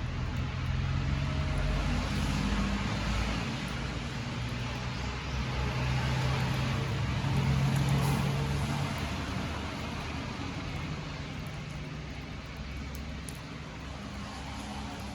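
A motor vehicle passing by: a low engine hum with road noise that swells to a peak about halfway through and then slowly fades.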